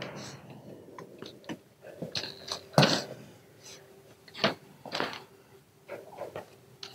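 Footsteps on a stage floor: a few irregular, separate steps with faint rustling between them.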